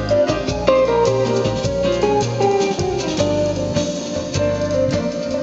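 Music from a CD played through a Realistic STA-2200 MOSFET stereo receiver and loudspeakers: a guitar-led piece with a bass line and drums.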